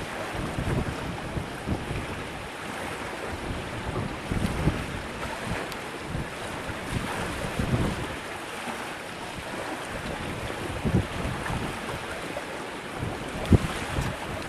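Strong gusty wind buffeting the microphone, an uneven low rumble over a steady rush of air, with a brief thump near the end.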